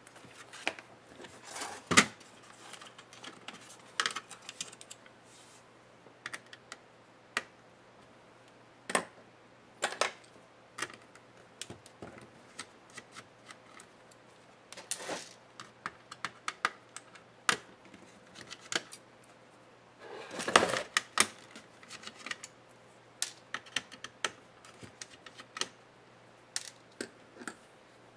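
Irregular clicks, taps and light rattles of an HP Stream 13 laptop's plastic case and metal-shielded parts being handled and pried during disassembly, with a denser, louder cluster about two-thirds of the way through.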